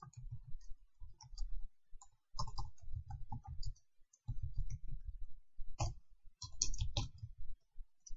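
Keys clicking on a computer keyboard, typed in short irregular bursts with brief pauses between.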